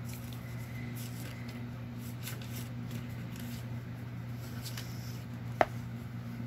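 Faint rustling of paper as junk-journal pages and a loose paper piece are handled, over a steady low hum. One sharp click about five and a half seconds in.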